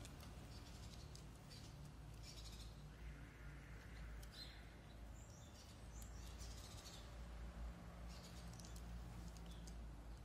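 Faint crunching and clicking of cats chewing dry kibble, in scattered clusters. A few short bird chirps sound in the background about a third of the way in, over a steady low outdoor hum.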